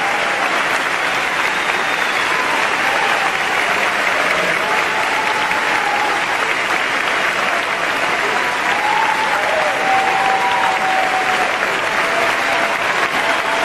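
Large theatre audience applauding steadily, with scattered voices calling out.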